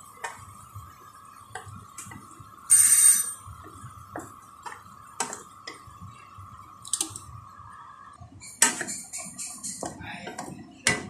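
Spatula knocking and scraping against a frying pan while stirring eggs, tomatoes and mushrooms. There is a short harsh scrape about three seconds in and a busier run of scraping and tapping near the end. A faint steady high hum runs underneath and stops about eight seconds in.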